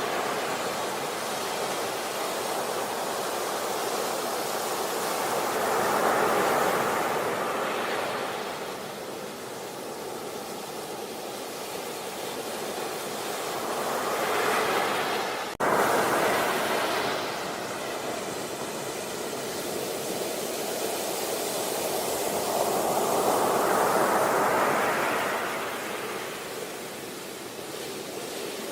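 Sea waves breaking on a beach, the surf swelling and falling back in slow surges roughly every eight to ten seconds. There is a brief cut in the sound about halfway through.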